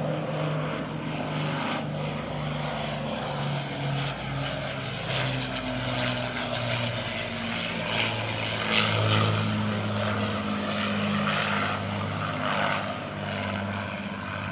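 An Avro Lancaster's four Rolls-Royce Merlin piston engines in a flypast, a steady multi-engine propeller drone that grows louder to a peak about nine seconds in and then eases off a little.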